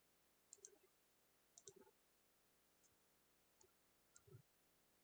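Faint computer mouse clicks, five or six short clicks spread unevenly, as presentation slides are clicked forward.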